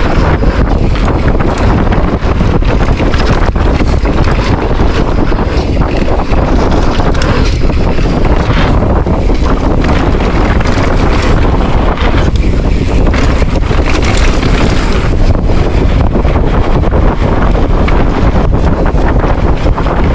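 Loud, steady wind rushing and buffeting over the microphone at speed, with no engine tone heard.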